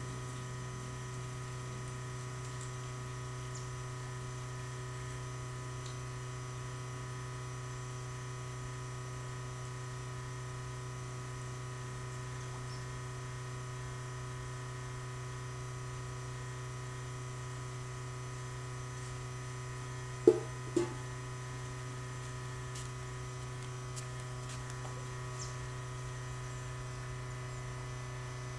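Steady low electrical hum with several fixed tones above it, unchanged throughout; two short knocks half a second apart about twenty seconds in.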